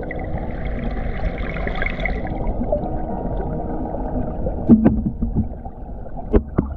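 Steady rush of flowing stream water, with a few sharp knocks about five seconds in and two more near the end.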